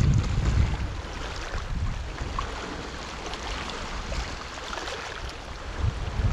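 Black Sea surf washing and hissing, with wind buffeting the microphone in low rumbling gusts at the start and again near the end.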